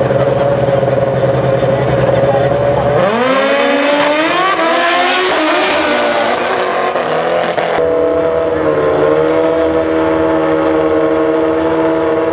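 Drag-racing motorcycle engines held at a steady rev on the start line, then a launch about three seconds in: the engine note climbs in steps through several gear changes as the bike accelerates away down the strip. Near the end a steady engine note from bikes idling on the line.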